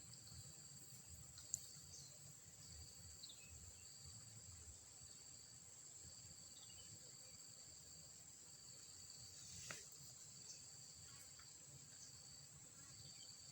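Faint, steady high-pitched insect trill from the rice paddy, two thin unbroken tones, over near silence. A sharp small click about a second and a half in and another later on.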